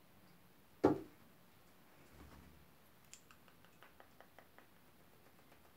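A single sharp thump about a second in, then, a couple of seconds later, a quick run of faint light clicks, about five a second.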